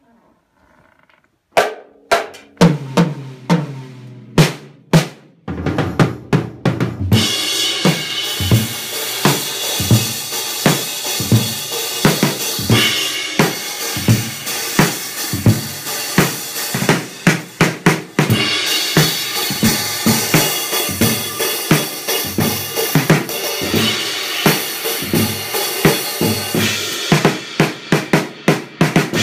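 Acoustic drum kit played solo: after a brief silence come a few widely spaced ringing drum hits, then about seven seconds in the cymbals come in and a steady groove of kick, snare and cymbals runs on.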